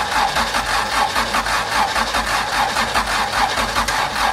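Honda H22A engine cranking on its starter motor in a rapid, even chug without catching. The engine still will not fire; the owner suspects a wrong wiring connection and a low battery.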